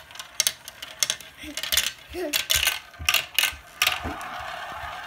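Marbles clattering down a plastic marble run: a quick series of sharp clicks and clacks as they drop through the tubes and strike the track pieces, then from about four seconds in a steady rolling whir as a marble circles the plastic funnel bowl.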